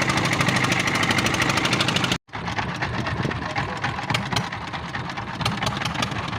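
A boat's engine running with a rapid, even knocking beat. About two seconds in, the sound cuts off abruptly; it then resumes a little quieter, with scattered clicks over the engine.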